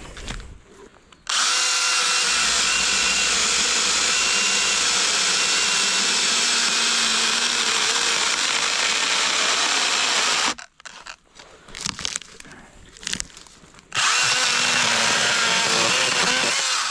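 Makita MUC101D 18V cordless handy chainsaw running and cutting through a log, a steady electric motor whine with the chain chewing wood. It runs for about nine seconds from just over a second in, stops for about three seconds, then cuts again for about three seconds.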